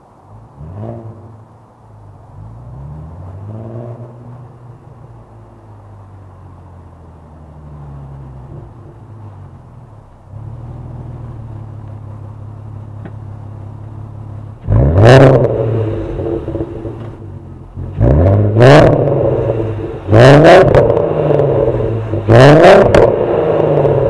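2004 VW Golf R32's 3.2-litre VR6 engine through a non-resonated Milltek exhaust: running low with a couple of light blips at first, then revved hard four times in quick succession in the second half, each rev rising sharply and dropping back.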